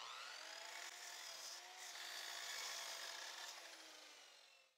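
Einhell sliding miter saw crosscutting a pine board, the blade running with a faint steady whine that fades out about three and a half seconds in.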